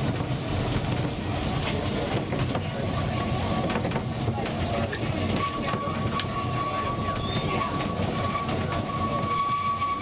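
Narrow-gauge passenger carriages running on the Ffestiniog Railway, heard from inside the carriage: a steady rumble of wheels on rail with scattered clicks and knocks. About halfway through a steady high-pitched squeal joins in and holds, typical of wheel flanges grinding on a curve.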